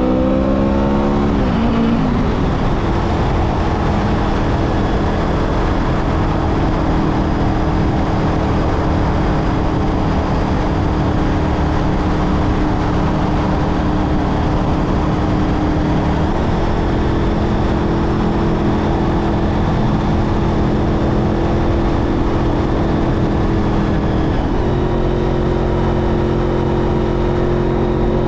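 Honda VFR800's V4 engine pulling steadily at cruising speed, heard from on the bike over a steady rush of wind. About a second in, the engine note rises and drops as a gear is changed; it then holds even, stepping up a little about 16 s in and again about 25 s in.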